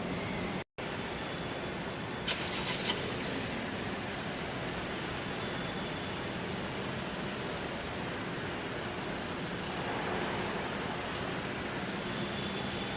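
Steady machine and vehicle noise of a car production line, with a low constant hum. A short hiss comes about two seconds in, and the sound drops out for an instant near the start.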